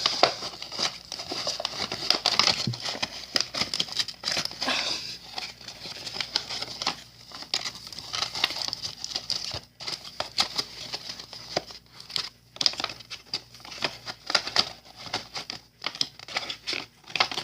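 Plastic-wrapped and cardboard firework packages crinkling and rustling as they are handled and packed into a container, with many small knocks and clicks.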